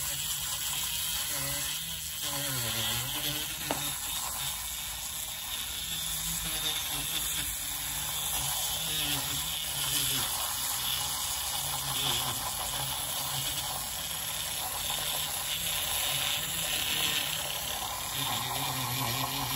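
IKEA handheld battery-powered milk frother running steadily, its spiral whisk spinning in a small amount of milk in a glass: a steady whir with a hiss as the milk froths.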